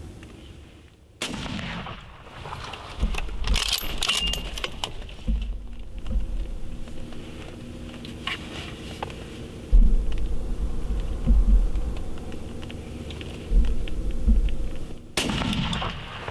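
A 6.5 Creedmoor hunting rifle fires about a second in, a single sharp bang that rings off, and a second similar bang comes near the end, fitting a follow-up shot. Low rumbling thumps on the microphone fall between the two.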